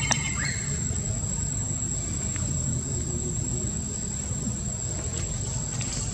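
Insect calling with one steady high-pitched tone over a constant low rumble, with a sharp click just after the start.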